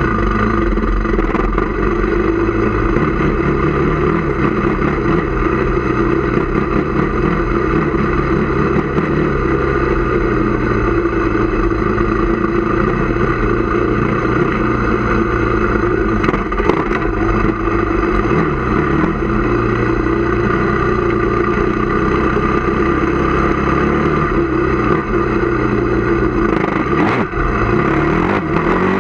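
Honda TRX450R quad's single-cylinder four-stroke engine running while the quad is ridden, its pitch rising and falling with the throttle. A few sharp clicks are heard near the end.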